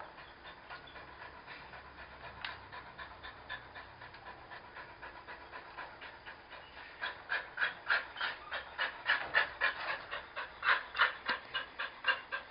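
A dog panting in quick, even breaths, about three a second, faint at first and louder from about seven seconds in.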